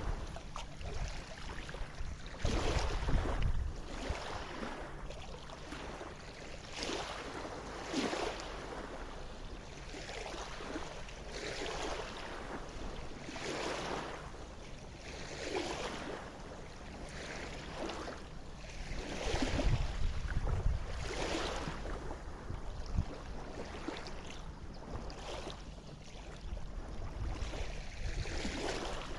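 Small river waves lapping against the bank in a steady run of soft splashes about every second and a half. Gusts of wind rumble on the microphone near the start and again about two-thirds of the way in.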